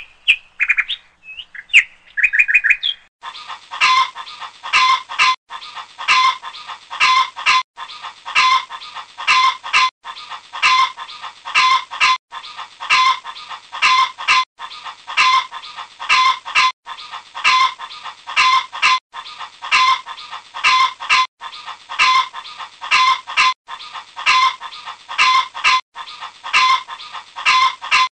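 A looped sound effect of chicken calls. It opens with a few short high chirps, then one dense clip of clucking and chirping repeats about every two and a quarter seconds.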